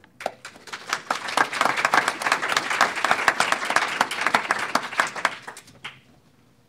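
Audience applauding, building up over the first second and dying away about six seconds in.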